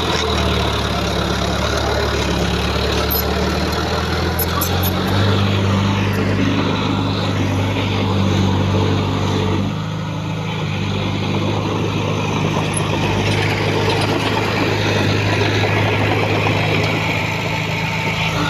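Diesel engine of heavy earthmoving machinery, a bulldozer or dump truck, running steadily. Its note shifts a couple of times, with a brief dip about ten seconds in, as the load or revs change.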